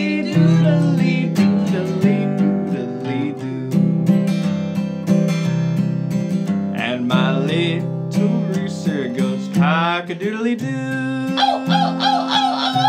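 Acoustic guitar strumming a steady country accompaniment, with two short animal-call sound effects mixed in about halfway through.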